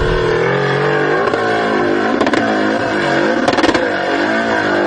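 Off-road vehicle engine revving, its pitch rising and falling over and over as the throttle works, with a few sharp knocks.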